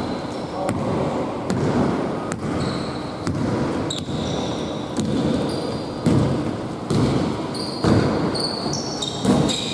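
Basketball dribbled on a hardwood gym floor, the bounces coming at irregular intervals, with short high sneaker squeaks from players moving on the court.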